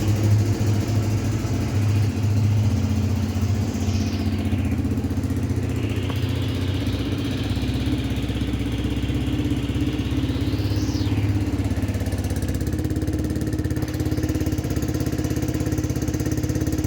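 Yamaha R15 V2's single-cylinder four-stroke engine idling steadily through an Akrapovic full-system exhaust with the dB killer fitted.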